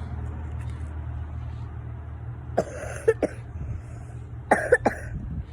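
A person coughing in two short fits of about three coughs each, the first a little after halfway and the second about a second and a half later, over a steady low hum. The cougher puts the cough down to allergy season.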